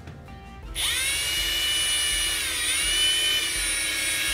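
Cordless drill driving a screw into a wooden bed rail: the motor starts with a high whine about a second in and runs steadily, its pitch dipping briefly near the middle.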